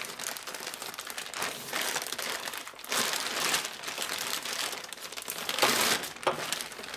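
Thin plastic bag crinkling and rustling as it is pulled off a new crankshaft, with a few louder rustles along the way.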